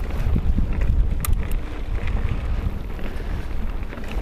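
Wind buffeting the microphone over the rumble and rattle of a mountain bike rolling down a rough gravel trail, with a few sharp clicks about a second in.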